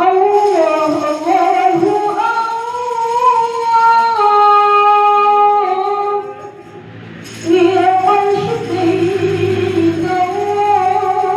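A woman singing a suluk unaccompanied, drawing out long ornamented notes, with a brief break about six seconds in before she takes up the line again.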